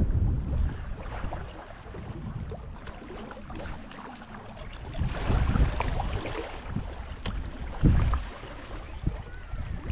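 Wind gusting over the microphone in uneven low rumbles, with the wash of the sea beneath.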